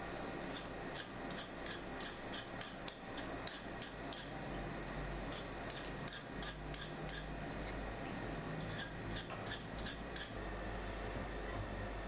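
Hand cutting during food preparation: a run of crisp snips, about three a second, thinning out after about seven seconds.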